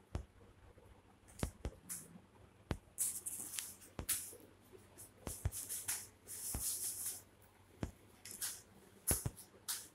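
Kittens scuffling over a thin plastic bag: the bag crinkles and rustles in short irregular bursts, with scattered sharp taps and knocks of paws and bodies on a concrete floor.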